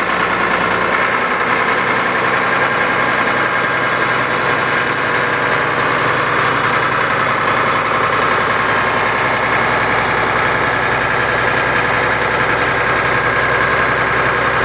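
Caterpillar D5B bulldozer's diesel engine running steadily at idle.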